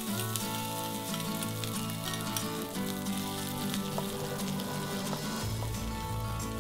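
Chopped dried shrimp sizzling in hot shallot oil in a wok as they are poured in and stirred, a steady hiss with many small pops.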